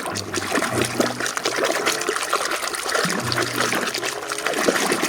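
Water splashing and trickling over a muddy toy car as it is washed clean.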